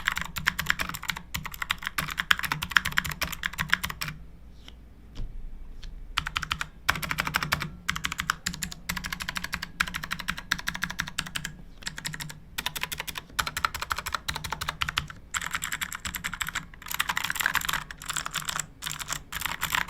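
Fast typing on an Altec Lansing mechanical keyboard: a dense, continuous clatter of key presses, thinning to a few scattered keystrokes about four seconds in before the rapid typing resumes.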